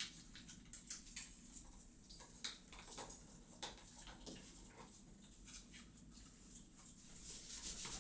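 Faint, scattered light scuffles, pattering and small clicks of kittens roughhousing and moving about.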